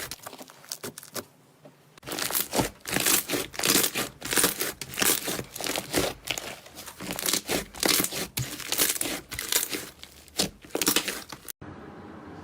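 Slime being squeezed and pressed by hand: a dense run of crackling, popping clicks, faint at first and loud from about two seconds in. It cuts off suddenly near the end into a steady hiss.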